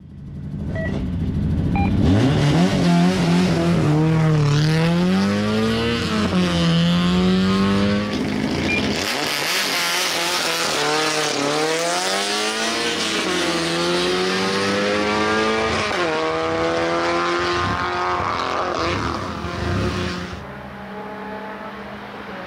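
Race-prepared Mk1 Volkswagen Golf GTI four-cylinder engine revving up and down at the start line, then launching and accelerating hard, its pitch climbing and dropping back at each of several upshifts. Near the end it becomes a quieter, more distant engine note.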